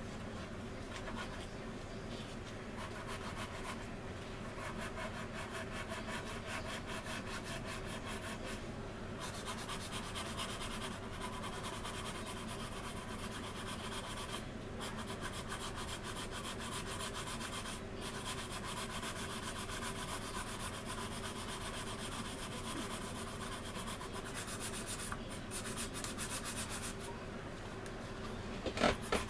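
Sanding stick rubbed back and forth along the wing of a resin model aircraft kit: steady, scratchy rubbing in quick short strokes, with a few brief pauses.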